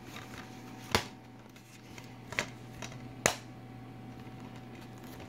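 A plastic DVD case being handled close to the microphone: three sharp clicks, about a second in, midway and a little later, over a steady low hum.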